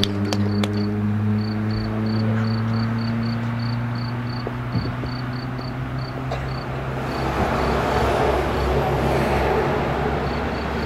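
Road traffic passing: an engine hum that slowly drops in pitch, then tyre noise swelling over the second half as a lorry goes by. An insect chirps steadily in short high pips, about three a second.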